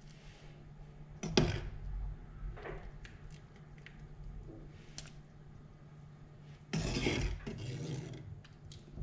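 Kitchen utensils knocking and scraping against pots and dishes while cooked glutinous rice balls are moved into cold water, with a sharp knock about a second in and a louder rush of noise near the end, over a steady low hum.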